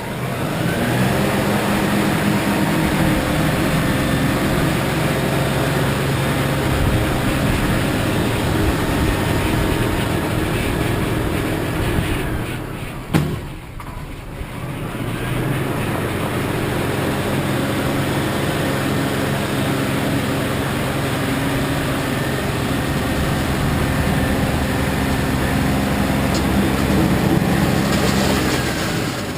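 LS XR3135C compact tractor's diesel engine running steadily, driving a snowblower. About halfway through there is a sharp click, the engine drops off briefly, and then it comes back up to speed.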